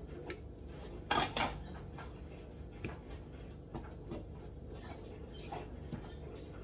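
A utensil scraping and clinking against a mixing bowl as butter and icing sugar are stirred into icing, with the loudest scrape about a second in and lighter taps after it.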